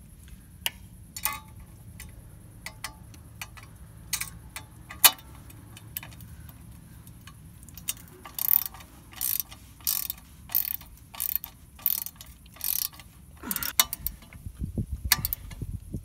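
A screw being driven into a car's loose sheet-metal shield with a ratcheting hand tool: scattered metal clicks at first, then from about eight seconds in a regular ratchet clicking, about one and a half strokes a second, with a few low bumps of handling near the end.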